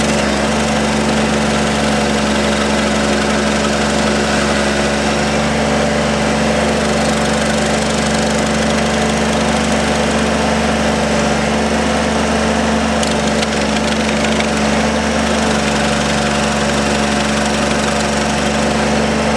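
Ramrod 1150 mini skid steer's engine running steadily, powering its stump grinder attachment.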